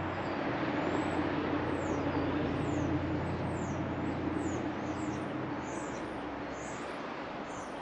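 A vehicle engine hums steadily and fades away after about five seconds. Over it, a bird repeats short, high, falling chirps.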